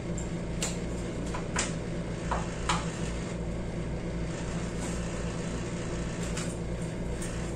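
Plastic cutlery tapping and scraping on plastic food containers during a meal: about seven short light clicks, most of them in the first three seconds. Under them runs a steady low hum.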